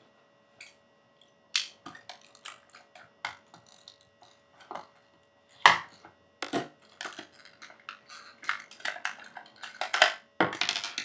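Small metal parts and tools being handled: an irregular string of sharp clicks and knocks, with louder clanks about halfway and again near the end.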